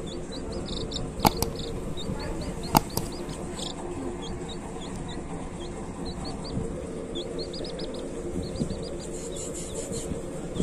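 Baby chick peeping: quick runs of short, high peeps, with two sharp clicks a second and a half apart, the first about a second in.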